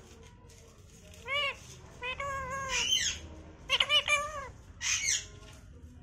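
Rose-ringed parakeet calling: a string of about five short calls, some clear and arching in pitch, others harsh squawks.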